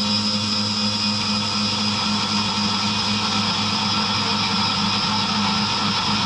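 SkyfireCNC SVM1-VMC vertical mill cutting an aluminium block with an endmill under flood coolant: a steady, loud machining sound, with the spindle's low hum, a constant high-pitched cutting tone and the hiss of coolant spray.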